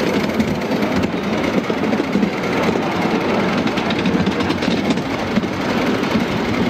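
A 5-inch gauge miniature steam locomotive hauling a ride train along a raised track: steady, quick exhaust chuffing with the rattle of the wheels on the rails.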